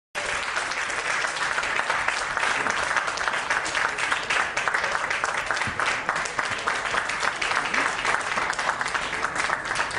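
An audience applauding: many people clapping in a dense, steady patter.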